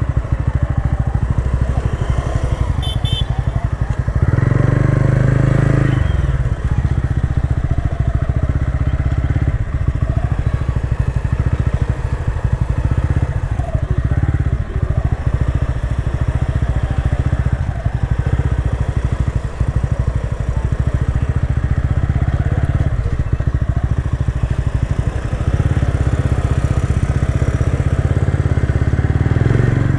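TVS Ronin 225's single-cylinder engine running as the motorcycle is ridden, with steady low engine note; it grows louder for a couple of seconds about four seconds in and again near the end.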